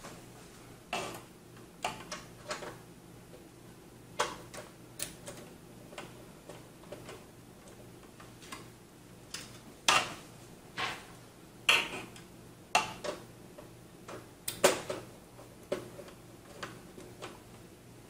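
Screwdriver working the screws out of a video card's mounting bracket in a PC case: irregular light metallic clicks and taps, one or two a second, with a few louder ones.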